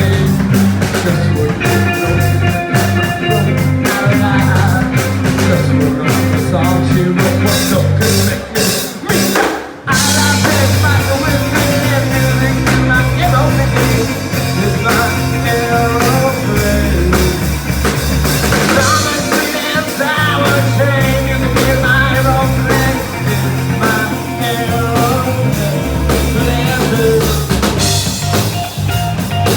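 Live rock band playing, with drum kit, bass, guitar and singing. The drums hit in a steady beat and the band drops out briefly about a third of the way in before coming back in full.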